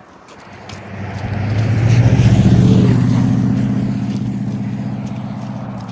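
A motor vehicle drives past close by. Its engine hum grows louder to a peak about two seconds in, then fades away.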